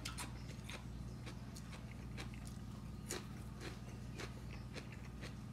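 Close-up chewing of a crunchy raw vegetable stalk: irregular soft crunches and mouth clicks, a few each second, over a steady low hum.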